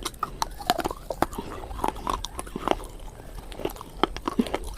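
A person chewing food close to the microphone, with irregular wet smacking and clicking mouth sounds.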